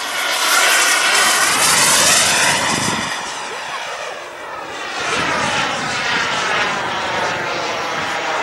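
Engine of a radio-controlled model F-16 jet flying past: a high whine over a rushing hiss, loudest in the first couple of seconds and falling in pitch as it passes. It fades around the middle, then swells again about five seconds in on the next pass.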